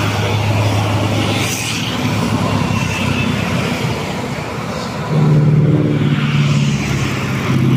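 Heavy road vehicles, buses and trucks, passing with their engines pulling up a steep hill. About five seconds in, a louder engine comes close.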